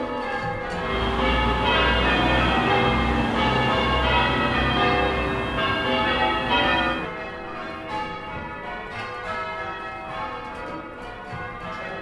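Church tower bells rung full-circle by a team on ropes (change ringing): a steady run of overlapping bell strikes following one another in sequence. A low rumble sits under the bells for the first several seconds, and the bells get quieter about seven seconds in.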